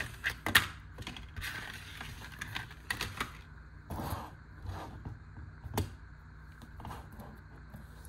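Small knives and their plastic packaging handled on a workbench cutting mat: scattered light clicks and rattles of the knife mechanisms and of knives being set down, with a few sharper clicks and short rustles.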